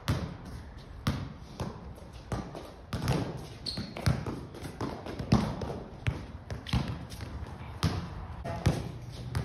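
Soccer balls being juggled and kicked, an irregular series of thumps as the balls strike feet and bounce on a concrete floor.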